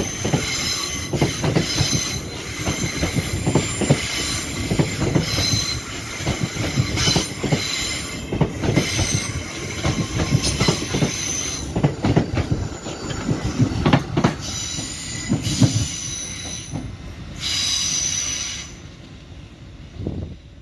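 Train wheels knocking over rail joints and pointwork, with high-pitched flange squeal from the wheels on the rails. The squeal briefly strengthens near the end, then the clatter dies away.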